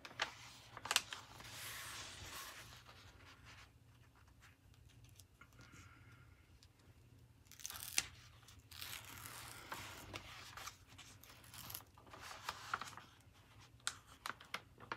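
Cover film on a glue-coated diamond-painting canvas being peeled slowly back, the film parting from the adhesive with a faint tearing crackle in several spells, with a few sharp clicks from handling.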